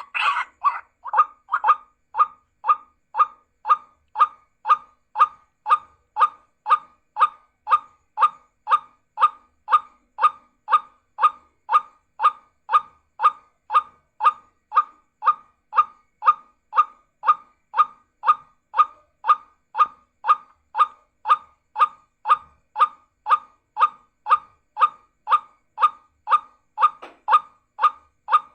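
Lure call of the geguak (white-breasted waterhen): one short, clipped note repeated at an even pace of about two a second, every note alike, as from a looped recording played to attract the bird.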